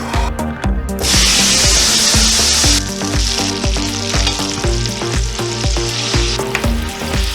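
Food sizzling in hot oil in a pan. The sizzle starts suddenly about a second in, is loudest for the next couple of seconds, then drops off near the end. Background music with a steady beat plays under it.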